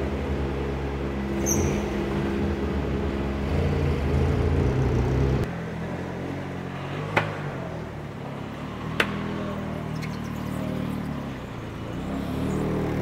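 Modified drift cars' engines idling and rolling slowly at low revs, the engine sound changing abruptly about halfway through. Two sharp clicks come a couple of seconds apart in the second half.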